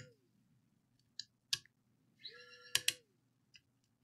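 Pen-style electric precision screwdriver backing out a mini PC's CPU heatsink screws. Its small motor runs for under a second about two seconds in, spinning up and winding down and ending in two sharp clicks. A few lighter clicks of the bit on the screws come before and after.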